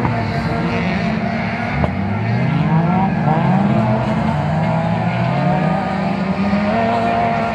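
Several race car engines revving on a dirt circuit, their pitch rising and falling over one another as the cars accelerate and slow.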